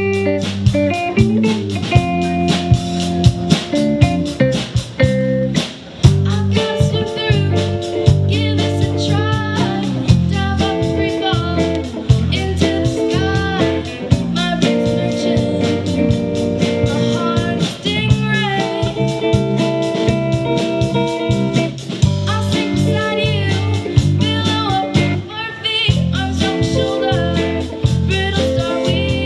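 Live rock band playing a slow song: two electric guitars through amplifiers over a drum kit, with sung vocals.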